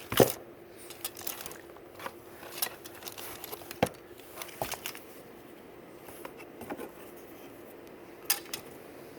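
Hands rummaging through clothing in a cardboard box: scattered rustles, taps and knocks, the loudest a sharp knock right at the start, over a faint steady hum.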